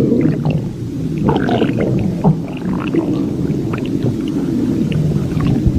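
Stomach growling: a steady low rumble with many short, higher gurgles running over it.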